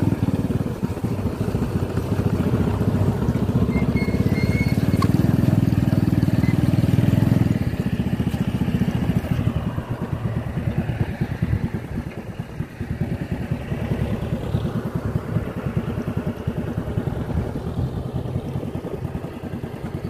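Motorcycle engine running steadily under way on a dirt track. A louder, deeper engine sound from a combine harvester passing close by dominates for the first seven seconds or so, then drops away.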